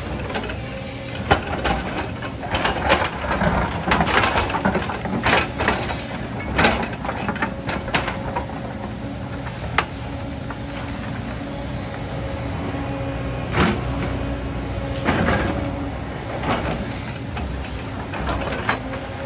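JCB tracked excavator's diesel engine running steadily while its steel bucket digs and scrapes through rocky soil, with stones clattering and knocking, mostly in the first half. Later the engine note rises and falls briefly a couple of times as the machine works.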